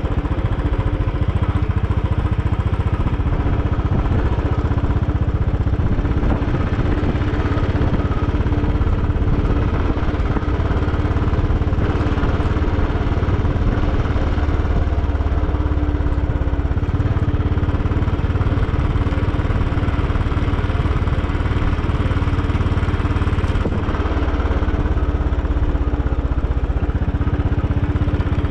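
Royal Enfield Bullet 500 EFI's single-cylinder four-stroke engine running steadily while the motorcycle is ridden along.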